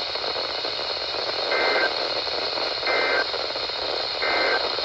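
Emergency Alert System end-of-message signal: three short, identical two-tone digital data bursts about a second and a half apart, marking the close of the alert. They play over a steady radio static hiss.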